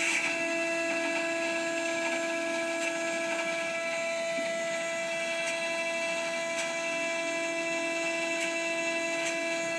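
Haas CNC mill cutting 1/8-inch aluminum plate in a shallow pass: a steady whine from the spindle and cutting tool, with a few light ticks scattered through.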